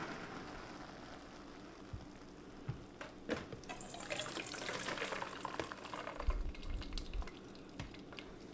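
Hot noodle-cooking water being poured off into a sink, the cooked Hakka noodles draining. A few short knocks come before the pour, and low thumps follow it.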